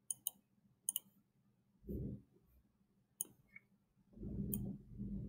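Computer mouse clicks, single and spread out, with a short dull low rumble about two seconds in and a longer one near the end.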